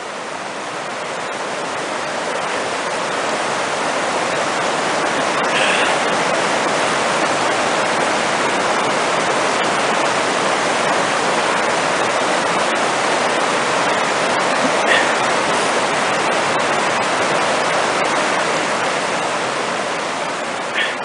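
Rushing mountain creek: whitewater tumbling over boulders, a steady loud roar of water that swells over the first few seconds.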